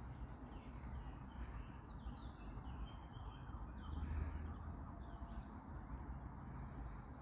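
Open-air ambience: faint birds chirping now and then over a low, steady rumble, which swells a little about four seconds in.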